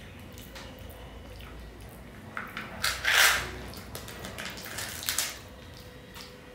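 Foil seal crinkling as it is peeled off the plastic chocolate-cream cup of a Kings Joy egg, with small handling sounds from the plastic shell. The loudest crinkle comes about three seconds in, another just after five.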